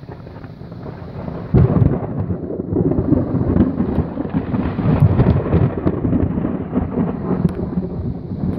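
Thunder from a cloud-to-ground lightning strike: a sudden loud crack about a second and a half in, then a long rolling rumble.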